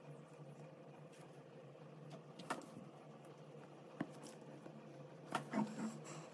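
Faint scratching of a fountain pen's extra-fine steel nib on paper over a steady low room hum. This is broken by a few sharp clicks and knocks, once at about two and a half seconds, again at four seconds, and a louder cluster near the end.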